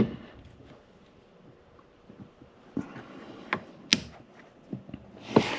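A few separate sharp clicks and light knocks of a wiper arm and its mounting parts being handled and fitted by hand, the sharpest click about four seconds in.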